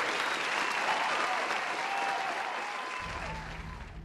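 Crowd applause with a few faint cheering voices, dying away near the end.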